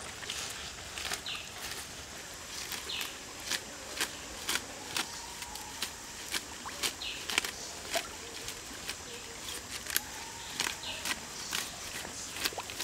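Water spinach (morning glory) stems being snapped and stripped by hand: irregular, crisp snaps, one or two a second, with light leafy rustling.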